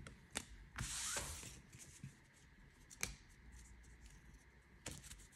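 Faint handling of Pokémon trading cards: a short sliding rustle about a second in and a few light clicks as the cards are moved and set down.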